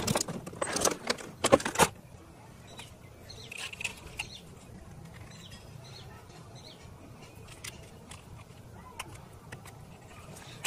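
Plastic packaging and toy drone parts being handled: a loud crinkling rattle for about two seconds, then scattered light clicks and taps of hard plastic.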